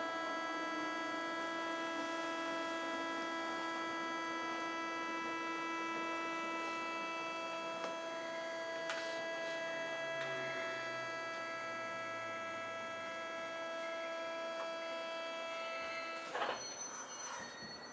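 The Mitsubishi thyristor armature chopper of a Tokyo Metro 8000 series train, heard from directly above the unit: a steady whine of several fixed tones over the running noise of the car as it slows. About 16 seconds in the whine cuts off abruptly and a few clunks follow.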